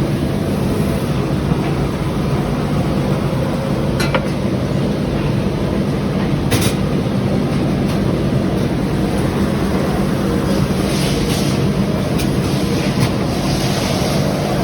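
Truck running on the road: a steady low engine and road drone, with a couple of short clicks about four and six and a half seconds in.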